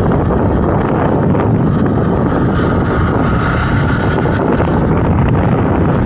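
Steady, loud rumble of wind buffeting the microphone, with a faint thin whine in the middle.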